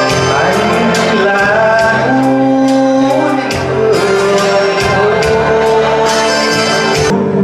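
A song sung live into a microphone over an instrumental backing: a duet in which a man's voice carries the melody.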